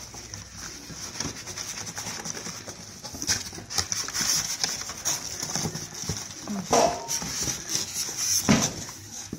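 Plastic wrapping and cardboard packing crinkling and rustling as a printer is unpacked by hand, with a few louder scrapes and knocks.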